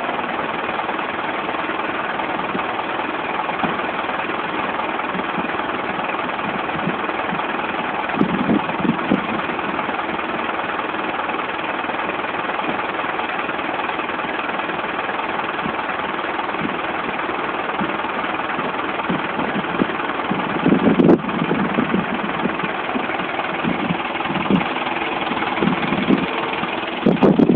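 Parked refrigerated box truck running steadily, a constant engine drone with fan-like hiss that does not change.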